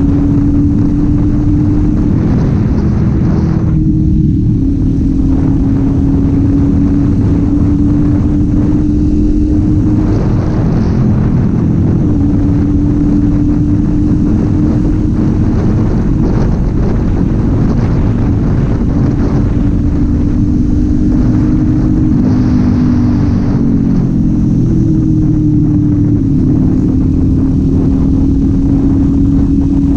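Kawasaki Z400 parallel-twin engine and exhaust running at steady cruising revs while riding. The engine note dips and rises again a few times with throttle changes.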